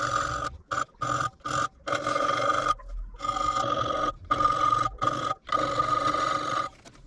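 Small electric power-tool motor whining at a steady pitch, in about ten bursts of differing length that start and stop abruptly.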